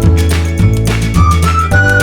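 Background music: a high, single-line lead melody over sustained bass notes and a steady beat.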